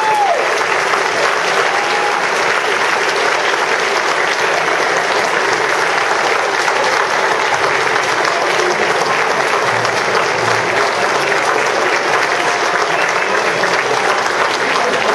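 Large audience applauding steadily, with a few voices cheering over the clapping near the start.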